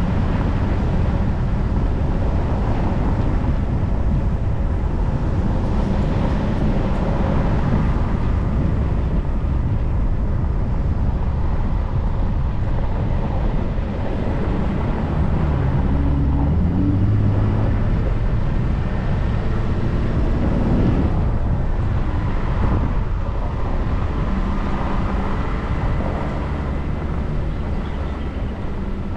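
Car driving along a dirt road: a steady rumble of tyres on the unsealed surface, with the engine note rising and falling as the revs change.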